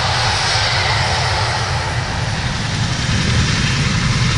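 Helicopter engines and rotor running steadily, a loud continuous low rumble under a broad rushing hiss.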